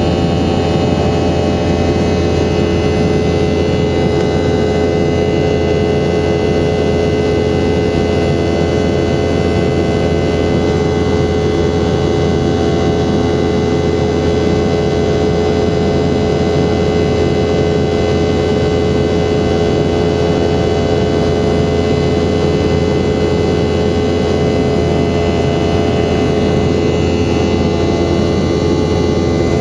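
Boeing 717-200 jet engines running at a steady power: a loud, unchanging rush of noise with a constant hum and several held tones.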